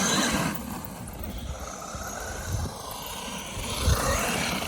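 Traxxas Maxx RC monster truck's electric motor and geared drivetrain whining as it is driven, the pitch dropping off and then climbing again with the throttle. Tires rumble over rough ground underneath, with a couple of low thumps.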